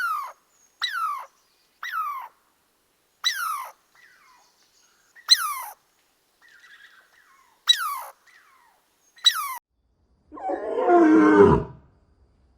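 Animal calls: a string of about seven short calls, each sliding down in pitch, then a longer, louder and much lower call near the end that falls away.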